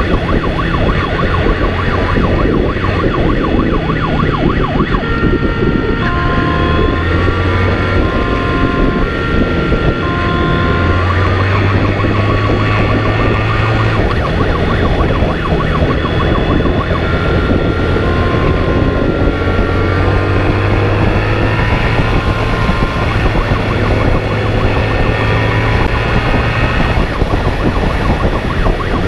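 Police motorcycle at speed: a two-tone siren alternates between a high and a low note over the running engine, whose revs rise and fall, with wind noise.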